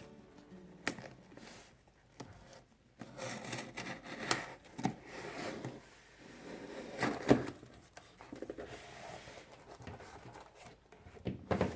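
A cardboard parcel being cut open and unpacked by hand: irregular scraping, rubbing and tearing of tape and cardboard, with a few sharp knocks, the loudest about seven seconds in.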